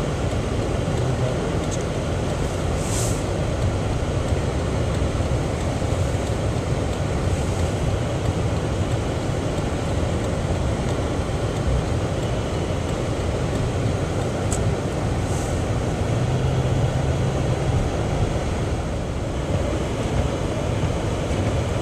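Steady low rumble and hiss of a car heard from inside its cabin, the engine and road noise running without change.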